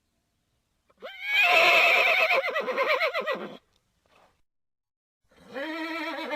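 Horse whinnying: one long, loud, quavering whinny starting about a second in and falling in pitch, then after a pause a quieter, lower call near the end.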